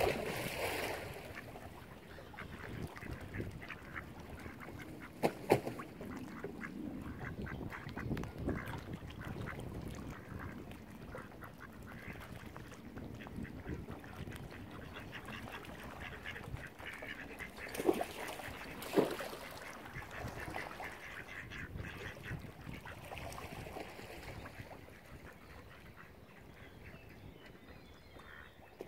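Mallard ducks quacking on and off, a few calls louder than the rest.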